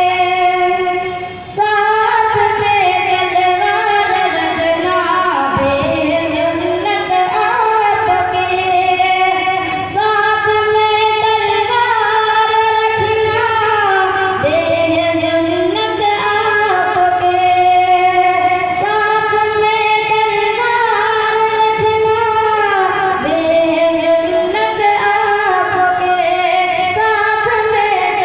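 A boy singing a naat, an Urdu devotional poem in praise of the Prophet, solo into a microphone without instruments, in long held notes with gliding ornaments; he breaks briefly for breath about a second and a half in.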